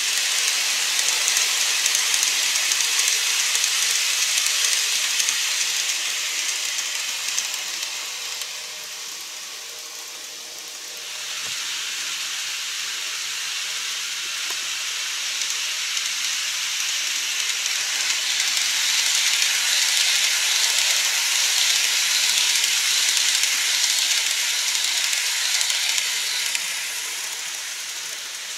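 N-gauge model trains running on plastic viaduct track: a steady high-pitched whirring hiss of the small motors and wheels on rail. It dies down about a third of the way in as a train moves away, then builds again as another train comes round the layout.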